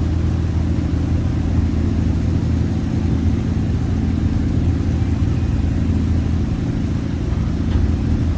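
A ferry's engine running steadily, a low even drone.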